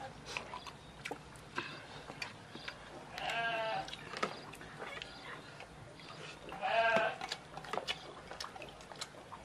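A bleating farm animal calls twice, each call under a second long and wavering in pitch, about a third and two thirds of the way in. Scattered light clicks and taps come between the calls.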